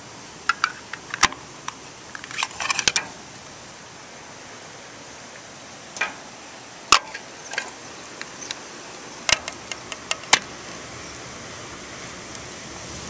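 Hard plastic parts of a model airliner's display stand clicking and rattling as they are handled and snapped together: scattered sharp clicks in small clusters with quiet gaps between, over a steady hiss.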